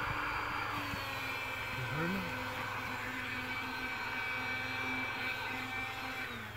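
Electric air pump running steadily, inflating an air mattress, with a constant motor hum; near the end it shuts off and its pitch drops as it winds down.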